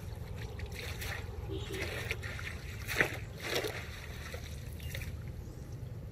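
Wind buffeting the microphone as a steady low rumble, with a few soft swishes over it, the sharpest about three seconds in.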